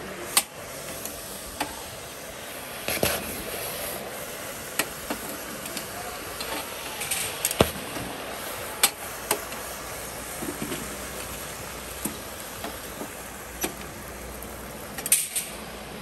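Stainless steel barbecue tongs swished and knocked about in a bucket of water: scattered sharp metal clinks and splashes over a steady hiss.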